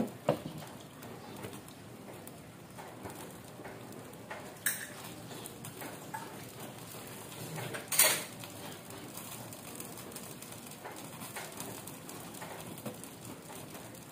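Covered pan of chicken and potatoes simmering over a gas flame: a steady bubbling hiss. The glass lid clicks into place at the start, and there are two sharp knocks about five and eight seconds in, the second the loudest.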